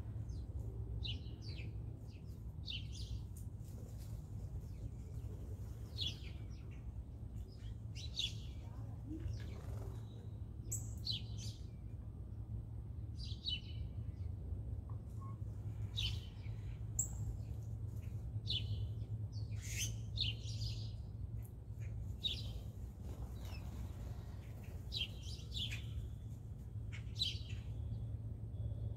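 Birds chirping: short, high chirps every second or two, over a steady low hum.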